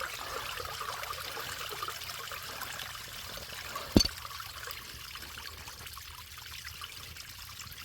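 Backed-up drain water pouring and trickling out of an opened drain line, a steady rush that slowly fades. A single sharp knock about four seconds in.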